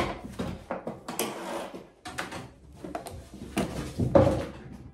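Handling noise of an appliance power cord: a series of knocks and rattles as the cable and plug are moved about, with the loudest clunk about 4 s in as the plug is pushed into a socket on a portable power station.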